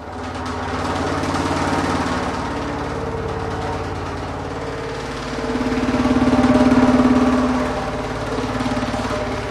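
Micro-tuned tubes with paper mallet tops, driven by sub-audio tones, sounding together: a fast, buzzing rattle of the paper tops with steady tube tones beneath it. It starts suddenly and swells to its loudest about six to seven seconds in.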